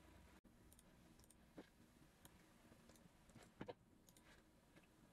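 Near silence: faint room tone with a few faint clicks, the loudest a quick pair about three and a half seconds in.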